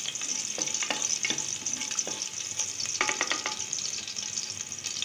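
Crushed garlic sizzling in oil and ghee in an aluminium pressure cooker, with a wooden spatula scraping and knocking against the pot several times before the stirring stops about three and a half seconds in.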